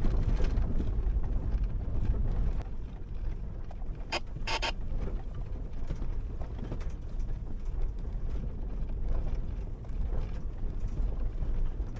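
Inside an 80 Series Toyota Land Cruiser driving a rough dirt trail: a steady low rumble of engine and tyres with frequent rattles, clicks and knocks from the body and loose gear, two sharper knocks about four seconds in.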